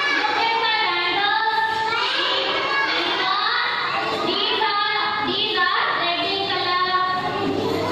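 A group of young children singing a song together, with a woman's voice leading them.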